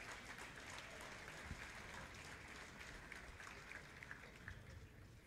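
Audience applauding, faint, with scattered claps that die away near the end.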